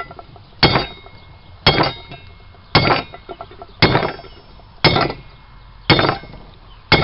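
Hand hammer striking a piece of rebar on the edge of an anvil, seven blows at about one a second, each with a short metallic ring. The blows flatten the end of the rebar into a spoon shape for an arrowhead socket.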